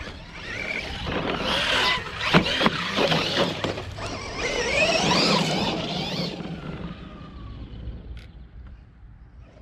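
Losi Hammer Rey 1/10-scale RC rock racer driven hard over loose dirt: its brushless electric motor whines, rising and falling in pitch as it speeds up and backs off, over the scrabble of tyres and clicking gravel. It is loudest from about one to six seconds in as the truck passes, then fades as it drives away.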